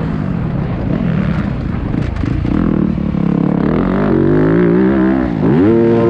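Engine of a 250cc motocross bike under race throttle: the revs climb steadily, fall sharply about five and a half seconds in, then rise again.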